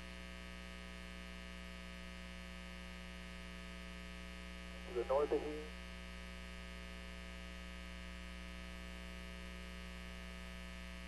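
Steady electrical hum and buzz on a live TV broadcast's open audio line, with a brief snatch of a voice about five seconds in.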